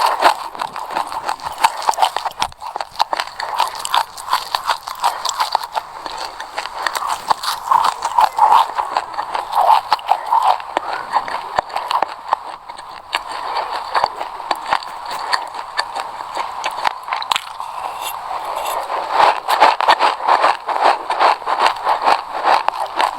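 Close-miked crunching of sesame seeds being chewed: a fast, continuous crackle of tiny clicks, with louder spells of chewing near the start, around the middle and near the end.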